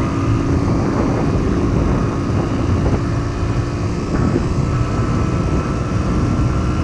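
Yamaha DT 125's two-stroke single-cylinder engine running steadily at low revs in fifth gear while being ridden, with heavy wind and road noise; it is held down at low revs because it is overheating.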